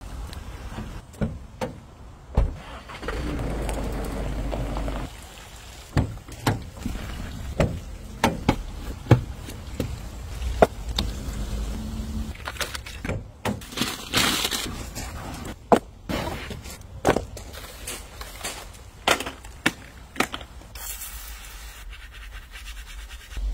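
A string of sharp clicks and knocks from car-valeting work on a pickup, with a steady low hum for about two seconds starting around three seconds in, a short spraying hiss in the middle and a thin hiss near the end.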